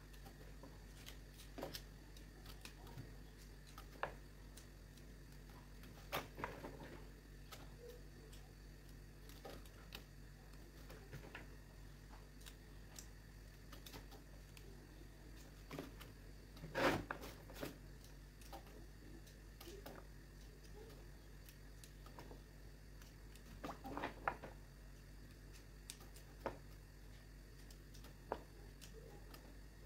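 Fresh green beans being snapped and trimmed by hand with a small knife over a plastic bag: scattered soft snaps, clicks and rustles, with one louder snap about halfway through.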